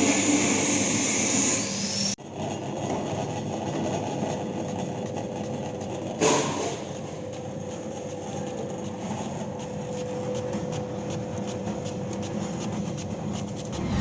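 A machine running steadily with a mechanical hum, broken by an abrupt change about two seconds in and a short louder burst about six seconds in.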